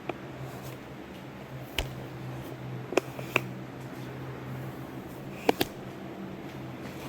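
A steady low hum with about six short, sharp clicks and knocks scattered through it, the loudest a pair about three seconds in and another pair near five and a half seconds.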